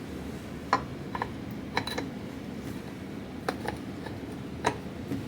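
Light metallic clicks and taps, about seven at uneven intervals, as a motorcycle engine's flywheel is slid onto the crankshaft over its key.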